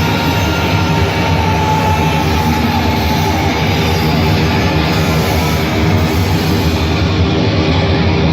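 Thrash metal band playing live at concert volume: a dense, steady wall of distorted electric guitar and drums with a few held notes ringing over it, heard from the crowd.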